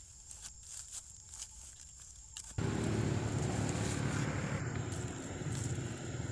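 Faint rustling and small crackles, then about two and a half seconds in a steady low rumble starts abruptly and stays loud, drowning out the rest.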